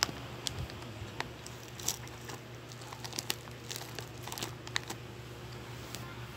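Plastic snack-packet wrappers crinkling as they are handled, in scattered short crackles and ticks.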